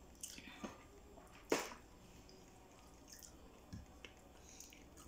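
Quiet mouth sounds of people eating: a handful of short wet smacks and clicks from chewing, the sharpest about a second and a half in.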